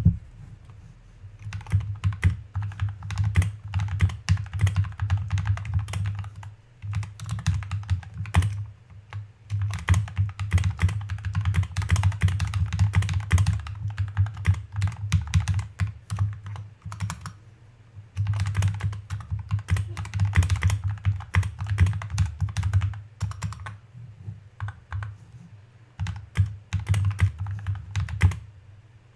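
Typing on a NovelKeys NK65 aluminium-case mechanical keyboard fitted with NovelKeys Cream linear switches, testing the finished build: fast runs of keystrokes with a deep low tone, broken by brief pauses.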